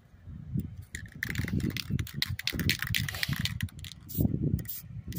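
Wind buffeting the microphone in gusts, with an aerosol spray-paint can hissing from about a second in until about three and a half seconds in.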